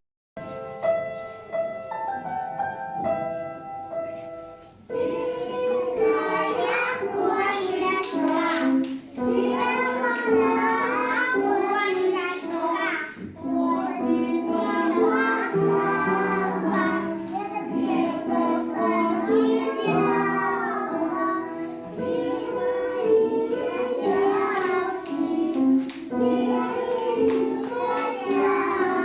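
A group of small children singing a song together over an instrumental accompaniment, after a short instrumental introduction of about five seconds.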